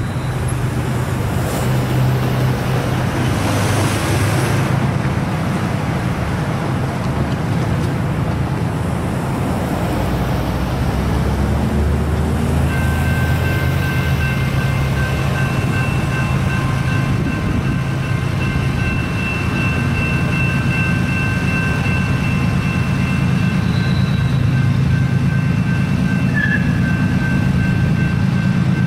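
Road traffic rumbling through an intersection. About halfway in, a railroad grade-crossing warning bell starts ringing steadily as the crossing signals activate, warning of an approaching train.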